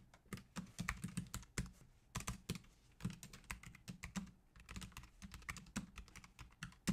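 Typing on a computer keyboard: quick, irregular keystroke clicks in short runs with brief pauses between them.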